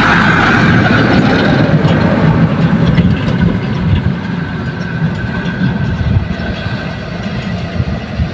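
Mitsubishi dump truck's diesel engine running loud as it drives past close by, then fading over the first few seconds as it moves away. A second truck's engine carries on more softly as it approaches along the road.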